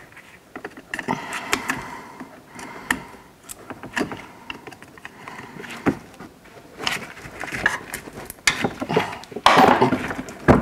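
Irregular small plastic clicks, knocks and rubbing as gloved hands work a dirt-clogged plastic wiring-harness plug for parking sensors loose under a car's rear bumper, with a louder rasping rub about a second before the end.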